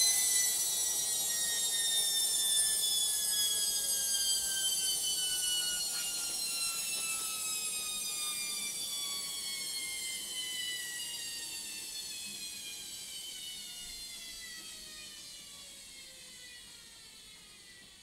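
Logik front-loading washing machine winding down from its final spin: a high motor whine falls steadily in pitch and fades away as the drum slows.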